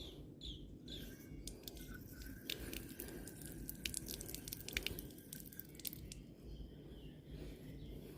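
Quiet outdoor ambience: a few short bird chirps in the first second, then a thin steady whistle, with a run of crisp crunchy clicks over a low rumble in the middle.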